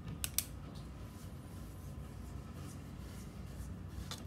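Pen-and-paper handling noises at a desk: two sharp clicks close together about a quarter of a second in, then a few faint light taps and scratches over a low steady room hum.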